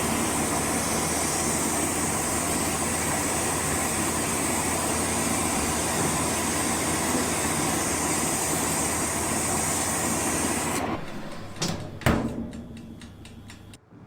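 A motorised tool running steadily with a loud high hiss and a low hum, then switched off about eleven seconds in. A sharp knock follows, and it winds down with faint ticking before stopping.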